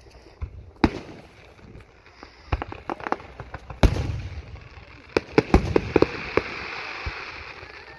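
Aerial fireworks going off: a string of sharp bangs from shells bursting, the loudest about four seconds in, with a steady hiss from about halfway on.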